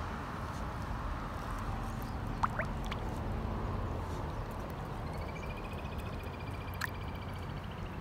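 Koi gulping and splashing at the pond surface, with small wet plops and clicks among a steady outdoor hiss. A high pulsed trill from a small animal runs for about a second and a half past the middle.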